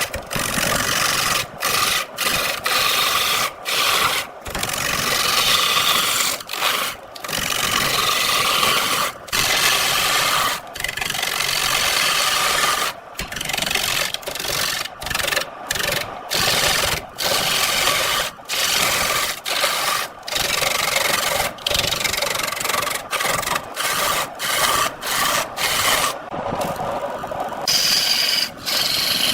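Wood being turned on a lathe: a cutting tool scraping against the spinning wood, making a steady rasping hiss. The hiss is broken by frequent brief gaps.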